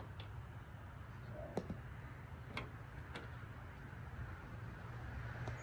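Woody fig cuttings tapped and set down on a glass tabletop: a handful of light, scattered ticks, about five in all, over a faint steady low rumble.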